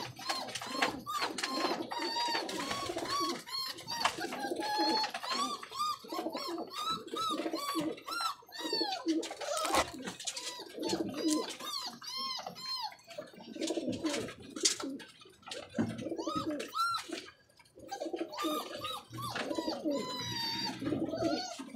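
A flock of domestic pigeons cooing and calling, with many short, repeated higher calls over the low coos, and scattered sharp taps and clicks.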